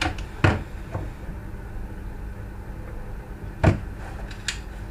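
Sharp clicks and knocks from hard plastic parts being handled: two in quick succession at the start, a louder one a little past halfway and a lighter one near the end, over a faint steady hum.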